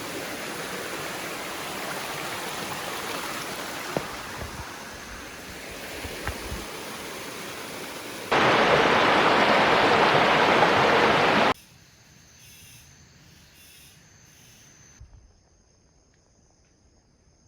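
Rushing water of a stream, steady for about eight seconds, then cut suddenly to a much louder, closer rush of water for about three seconds. It then drops abruptly to quiet forest with a rhythmic high-pitched insect buzz, fading to faint insect trills near the end.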